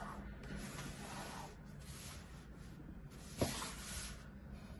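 Soft hissing rubs of hands sliding over a wooden tabletop while the speaker and cables are laid out, in three short stretches, with one light knock about three and a half seconds in.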